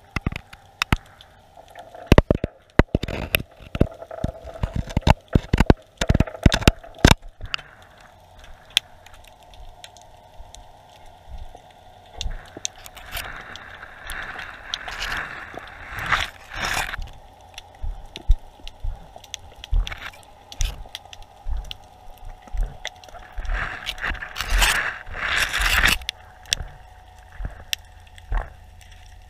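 Underwater GoPro housing knocking and scraping against the seabed. A quick run of sharp clicks and knocks comes in the first several seconds, then two longer rushing scrapes, one around the middle and one near the end, over a faint steady hum.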